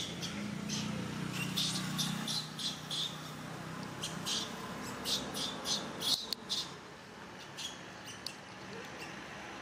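Short high-pitched chirping calls in quick clusters, several a second, with a pause between clusters about two thirds of the way in. A faint low hum sits underneath for the first few seconds.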